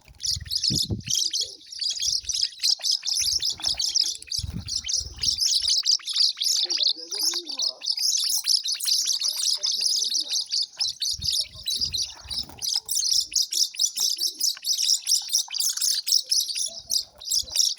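Many small birds chirping rapidly and continuously in a dense, high-pitched chorus. A few low thuds break in now and then.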